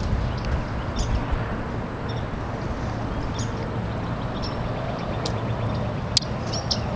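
Outdoor ambience: a steady low rumble with short, high bird chirps scattered through it, one sharper than the rest about six seconds in.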